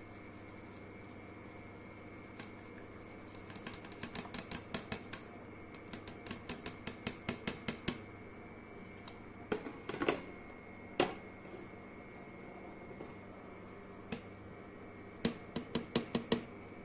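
Light clicking and tapping of kitchen utensils against a pan and small dishes as spices and herbs are tipped into a pan of warming water. A quick run of taps at about four a second, a few louder knocks about ten seconds in, and another short run of taps near the end.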